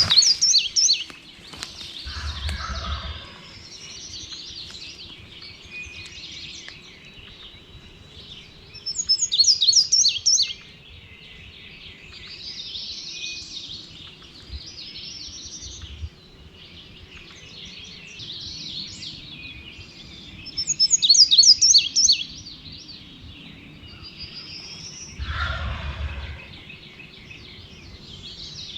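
Woodland songbirds singing. One loud, rapid, high-pitched song repeats about every eleven seconds over softer calls, and two lower, shorter calls come about two seconds in and near the end.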